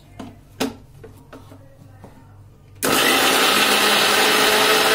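A few light clicks as the steel jar is fitted onto a Philips mixer grinder. About three seconds in, the motor starts abruptly and runs loud and steady, grinding fried tomato, onion and green chillies into a fine paste.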